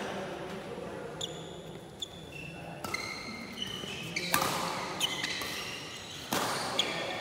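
A badminton rally: rackets strike the shuttlecock several times, with the sharpest hits about four and six seconds in. Shoes squeak briefly on the court floor between the hits, and the hits echo in the hall.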